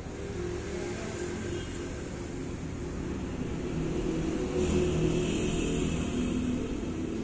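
Low, steady engine rumble of a motor vehicle running nearby, with a few held pitches that shift slightly. Past the middle, a brighter rustle of woollen cloth being handled and unfolded joins in.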